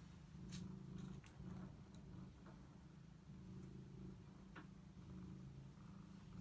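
Domestic longhaired cat purring quietly, the rumble swelling and easing in a slow rhythm about once a second, with a few faint light clicks.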